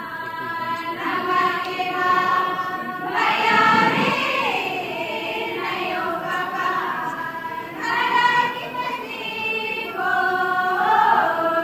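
A chorus of women's voices singing a tribal folk song together in long held phrases, pausing briefly between phrases.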